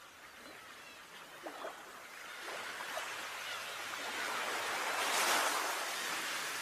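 A rushing noise like surf that swells to a peak about five seconds in and then eases a little, with a few short faint chirps in the first three seconds.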